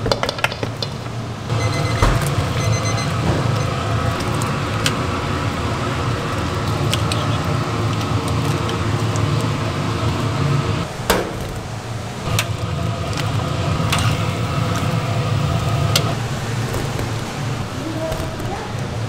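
Steady low hum of commercial kitchen equipment, with scattered sharp clinks of metal utensils against steel bowls and pots.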